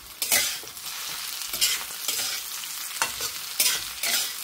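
Sliced spiny gourd sizzling in oil in a kadhai, turned over with a metal spatula: a scrape and a burst of sizzle with each of about five strokes over a steady frying hiss.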